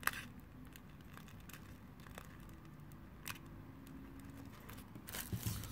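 Faint scraping and a few light clicks of a box cutter blade working at the tape and paper wrapping of a package, with a louder rustle of paper near the end.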